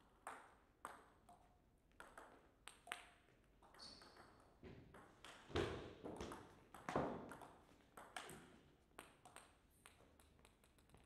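Table tennis ball clicking against the bats and the table: a run of sharp, irregular ticks through a rally. The two heaviest knocks come about five and a half and seven seconds in.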